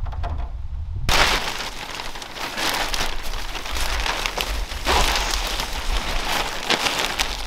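Thin plastic sheeting crinkling and rustling loudly in surges as it is pulled and draped over a wooden box, starting about a second in. A low wind rumble on the microphone lies underneath.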